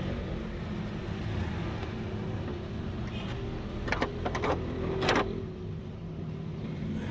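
A few sharp clicks and knocks of a part being fitted back into place: a quick cluster about four seconds in and a louder knock about a second later, over a steady low hum.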